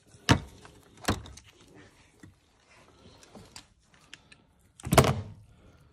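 Three sharp knocks, a third of a second in, about a second in, and the loudest about five seconds in, with faint rustling and small clicks between.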